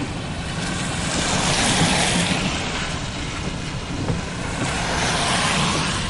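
A car driving slowly, its road and tyre noise heard from inside the cabin as a steady rush that swells twice.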